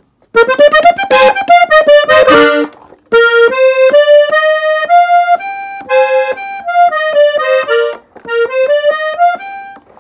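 Gabbanelli three-row button accordion tuned in F playing a melodic ornament in E-flat on its treble buttons. It opens with a fast run of notes, breaks briefly about three seconds in, then goes on with a slower line of separate held notes, with another short gap near the end.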